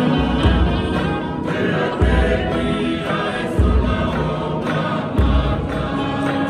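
A group of voices singing a Tongan tau'olunga song in harmony, over a deep low pulse that comes about every one and a half seconds.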